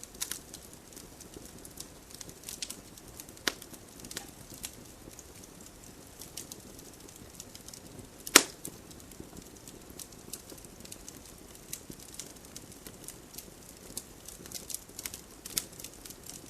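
Wood campfire burning, crackling with scattered sharp pops over a soft steady rumble of the flames; one loud pop about eight seconds in.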